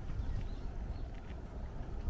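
Footsteps on a hillside trail with a low rumble of handling and wind on the microphone, and a few faint, short bird chirps.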